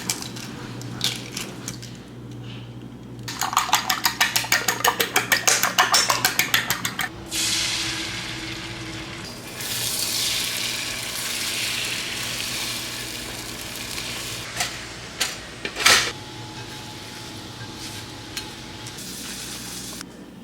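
Breakfast being cooked in a kitchen. A utensil clinks rapidly and evenly against a bowl, about eight strokes a second for several seconds, as when beating eggs. This is followed by a steady hiss of frying that fades, then a few knocks of pans and dishes.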